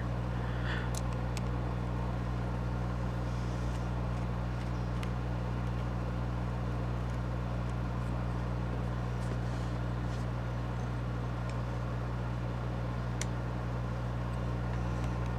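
Steady low background hum, with a few faint, light clicks scattered through it.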